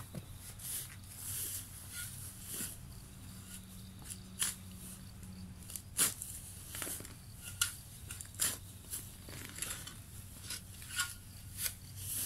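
Steel spade being driven into grassy, stony ground: irregular scrapes and sharp clinks as the blade cuts soil and strikes buried stones, the sharpest about six seconds in.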